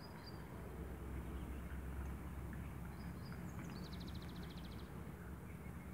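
Outdoor ambience: a steady low rumble with a few short high bird chirps, and a quick rattling trill of about a dozen notes just past the middle.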